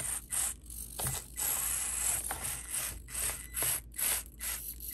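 Basher Rocksta mini rock crawler's small electric motor and gear drivetrain whirring in short stop-start bursts of throttle as it crawls and flexes over a rock ledge. The drivetrain is noisy while crawling, which the owner suspects may be a gear mesh issue at the motor.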